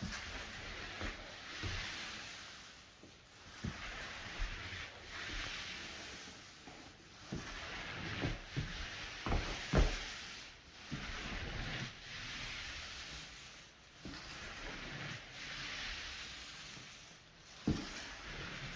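Floor-finish applicator rubbing across a hardwood floor while spreading the first coat of polyurethane, a hissing swish that swells and fades with each stroke every second or two. A few sharp knocks come in between, the loudest about halfway through.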